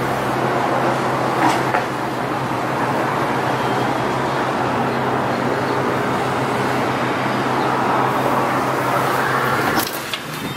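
Steady road-traffic noise with a constant low hum. Near the end a door latch clicks as the doorknob is turned.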